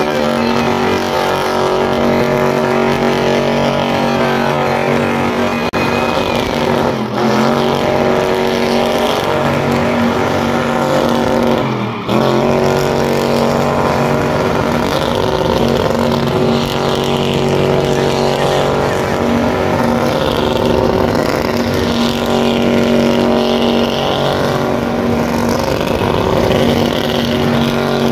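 Fox-body Ford Mustang doing a burnout: its engine held at high revs at a steady pitch, the rear tyres spinning. The revs dip briefly about seven and twelve seconds in before climbing back.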